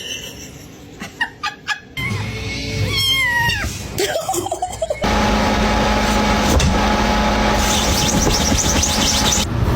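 Domestic cat meowing with falling pitch, cut with background music that carries on steadily from about five seconds in. A few soft clicks come first.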